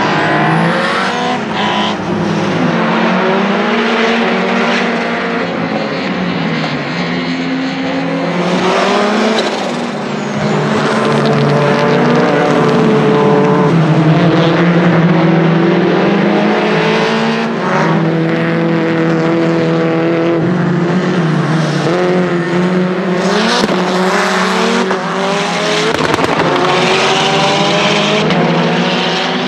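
Lancia Delta HF Integrale EVO Proto's 500 hp turbocharged 2.0-litre four-cylinder engine driven hard, its pitch climbing through each gear and dropping at quick sequential-gearbox shifts, again and again.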